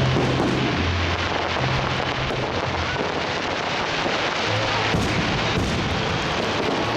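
Fireworks salute going off, with two sharp bangs about five seconds in, over music playing underneath.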